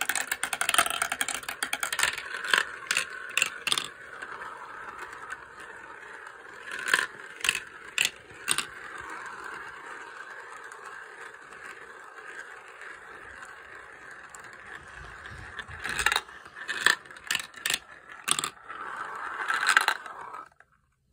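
Glass cat's-eye marbles spinning around the clear plastic funnel bowls of a marble run, a steady rolling whirr broken by sharp clicks as marbles knock together and drop into the tubes. The clicks come in clusters near the start, around seven to eight seconds in, and near the end, where the rolling stops suddenly.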